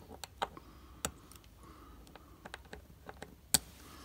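Small, irregular metal clicks of a watchmaker's screwdriver tip at the rim of a vintage Casio digital watch's steel case, working to pry the module out, with one sharper click about three and a half seconds in.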